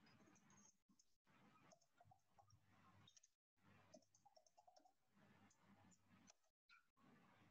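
Very faint computer keyboard typing: scattered light key clicks over a low steady hum.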